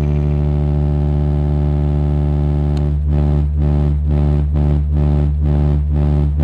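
Deep, loud bass drone from a DJ speaker-check track. About three seconds in it starts pulsing evenly, a little over twice a second.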